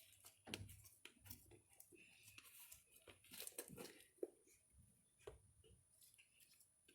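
Homemade slime being worked by hand, giving faint, irregular crackling and tearing sounds.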